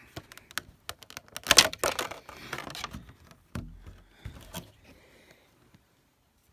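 Clear plastic display insert clicking and rattling as a card is worked out of it by hand. The loudest cluster of clicks comes about one and a half seconds in, with a few more around four seconds.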